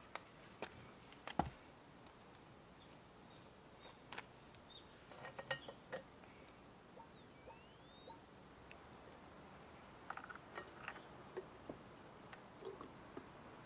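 Faint, scattered small clicks and light knocks, with one short chirp that rises and then falls about eight seconds in.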